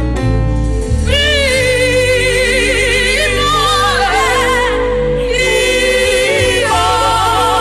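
Gospel worship music: a singer holds long, wavering notes with vibrato over sustained accompaniment with deep bass notes.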